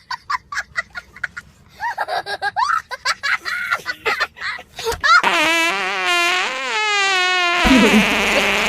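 Fart sound effects played from a speaker: a run of short toots, then a long wavering fart about five seconds in that turns into a rougher, noisier stretch near the end.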